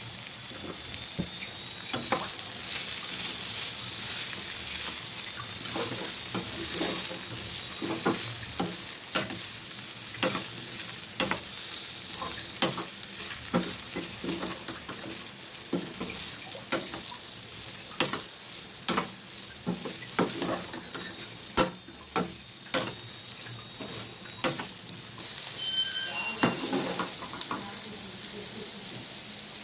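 Sliced ivy gourd sizzling as it stir-fries in a pan, with a steady frying hiss. A spatula stirs it, knocking and scraping against the pan about once a second.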